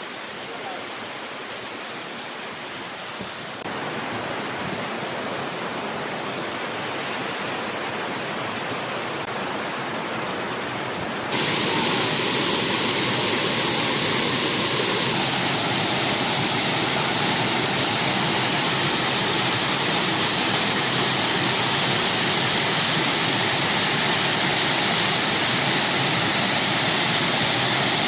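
A huge waterfall's water rushing down in a steady, loud noise. It steps up in loudness twice, a few seconds in and again about eleven seconds in.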